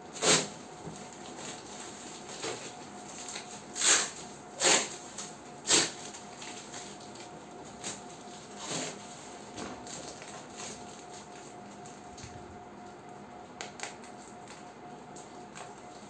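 Clear plastic shrink-wrap on a cardboard box crinkling and tearing as it is cut and pulled open by hand, in a handful of short rustles that are loudest in the first six seconds. A faint steady hum runs underneath.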